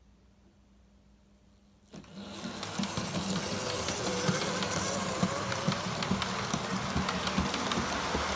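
Near silence, then about two seconds in a model train starts running: a small electric motor whirring with rapid clicking of wheels over the track, growing louder and then holding steady.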